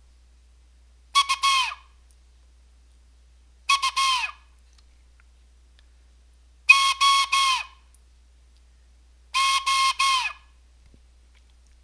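Morse code sent on a blown whistle-type wind instrument. Four groups of short, clipped notes on one high pitch, each group ending with a slight drop in pitch as the note is cut off, spaced a couple of seconds apart like separate letters.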